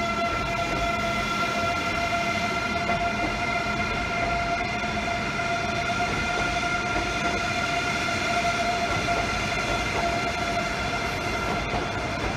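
Eurostar Class 374 high-speed train moving slowly through the station approach, with a steady high-pitched whine over a low rumble of wheels on rail.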